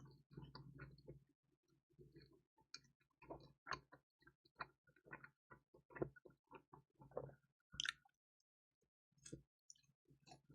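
Close-miked chewing of crispy pizza with dried radish greens: a run of short, irregular crunches and clicks. A longer crackle comes near the end, then a brief pause before a few more.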